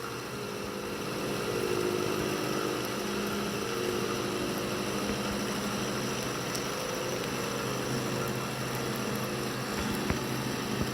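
Bridgeport milling machine with a Volstro rotary milling head running steadily as the cutter takes a circular pass in metal, the head turned by hand crank. A steady machine hum that grows a little louder about a second and a half in, with a few faint clicks near the end.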